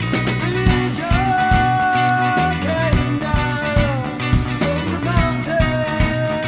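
Rock song playing: a steady drum beat with bass and guitar under long held melody notes that slide from one pitch to the next.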